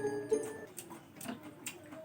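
Quiet break in the background music: the last notes die away, leaving a few faint ticks and clicks.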